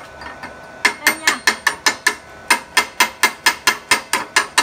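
Chipping hammer tapping slag off a fresh gasless flux-core MIG weld bead on steel plate: quick, even metallic taps about five a second, starting about a second in, with a brief pause midway.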